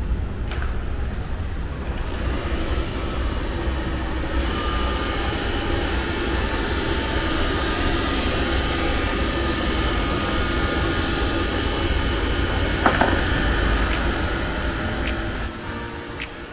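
Xiaomi Robot Vacuum X20+ running: a steady fan noise with a low rumble that swells a few seconds in, a sharp click about thirteen seconds in, and the noise dying down near the end.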